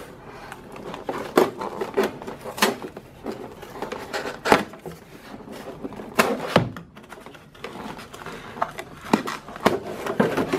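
Cardboard boxes and clear plastic parts trays of a cam and lifter kit being handled and shifted inside a larger shipping box: irregular light knocks, taps and brief rustles.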